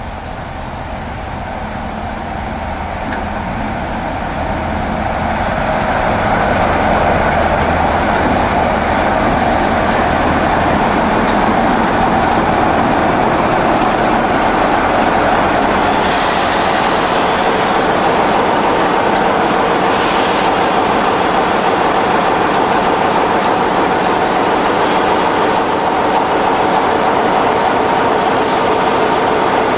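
BR Class 45 'Peak' diesel locomotive 45132, its Sulzer 12LDA28-B twin-bank engine running as it draws slowly alongside. The sound grows louder over the first several seconds, then holds steady, with a few short high-pitched squeals near the end.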